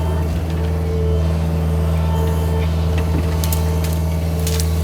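John Deere mini excavator's diesel engine running at a steady drone, with a fainter steady higher tone over it and a few light clicks in the second half.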